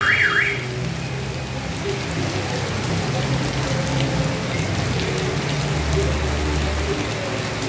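Heavy rain pouring down on a street and pavement: a steady, dense hiss of a tropical downpour. A short warbling electronic tone sounds at the very start.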